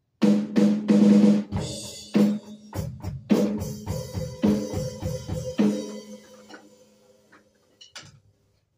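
Electronic drum kit played through its sound module: a sudden start with loud cymbal crashes and tom hits, then a run of drum hits that thins out and fades over several seconds, with a couple of light knocks near the end.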